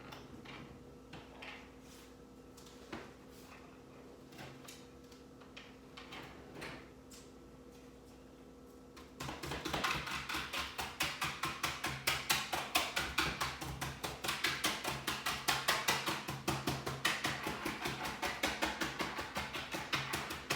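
Faint scattered clicks over a steady low hum, then, about nine seconds in, percussive music with quick, even wood-block-like beats starts suddenly and is louder.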